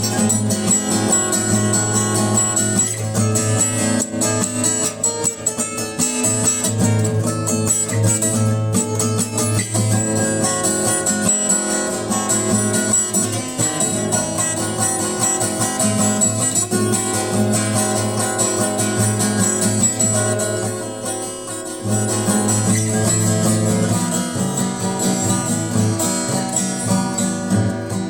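Acoustic guitar music, strummed and plucked, with a brief softer passage about two-thirds of the way through.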